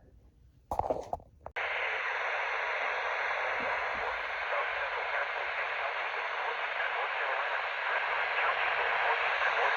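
A short knock or click about a second in, then radio static hiss switches on abruptly at about a second and a half and runs on steadily.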